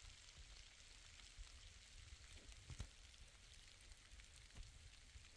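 Faint rain: an even hiss with a few scattered light ticks of drops.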